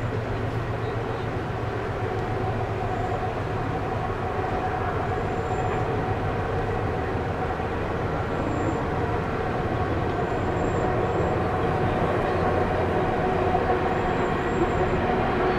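Canadian Pacific GE diesel freight locomotives running under power at a distance, a steady engine drone that grows slowly louder as the train approaches.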